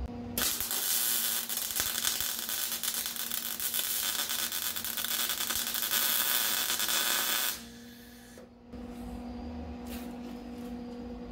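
MIG welder arc crackling steadily for about seven seconds as a bead is run on the sheet-steel joint between a cross member and the trunk floor pans; it stops a little over seven seconds in, leaving only a faint steady hum.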